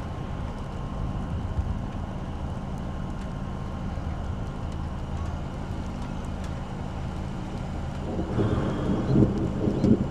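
Faint tornado warning sirens sounding over a steady low outdoor rumble, the siren tone fading out about six seconds in. About eight seconds in, a louder rumble of thunder rolls in.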